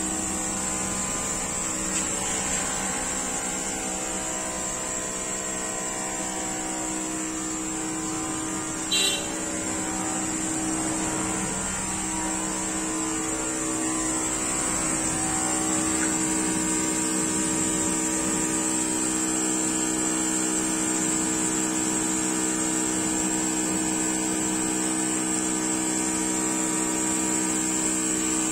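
CNC router's high-speed spindle running with its end mill cutting a jali lattice pattern into a wooden sheet: a steady machine whine with several held tones and a high hiss. A brief knock about nine seconds in.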